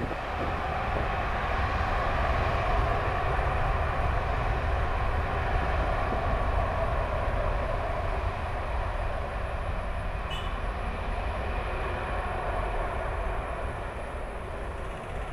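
The twin jet engines of an Airbus A330-200 running at takeoff thrust on the takeoff roll, a loud steady rush with a deep rumble that builds in the first two seconds and slowly fades as the aircraft moves away down the runway.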